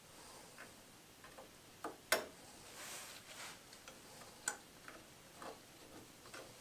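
Irregular sharp clicks and clinks of rear drum brake shoes, springs and adjuster hardware being handled during reassembly, the loudest about two seconds in and another about four and a half seconds in.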